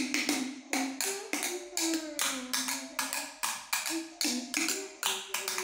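Two sticks drumming on large plastic water jugs in a quick, even rhythm of about three to four strikes a second. Each strike rings a short low note, switching between a lower and a higher pitch.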